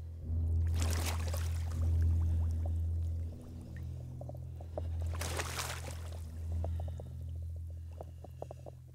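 Two heavy splashes of muddy creek water as people drop to their knees in it: one about a second in, another about five seconds in. Both sound over a steady low drone, with small drips and sloshes near the end.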